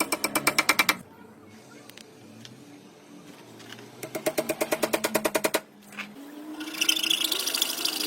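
A woodworking tool working wood in rapid, even strokes, about nine a second, in two bursts: one in the first second and a longer one of about a second and a half from about four seconds in. Near the end a steadier, higher rasping hiss sets in.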